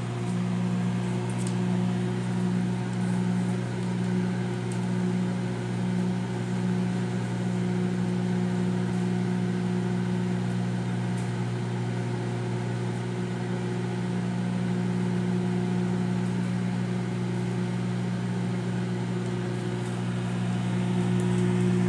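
Hamilton Beach countertop microwave oven running a heating cycle, giving a steady hum.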